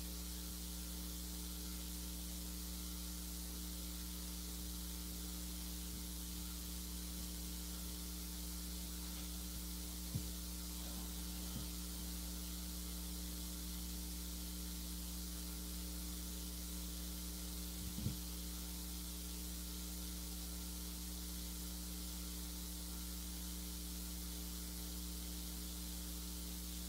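Steady electrical mains hum with a constant hiss, with two faint short knocks about ten and eighteen seconds in.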